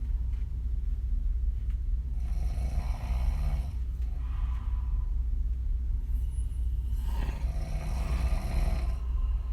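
Woman snoring open-mouthed, her lips puffing as the air blows out: two long snoring breaths about five seconds apart, the first with a short puff right after it, over a steady low rumble.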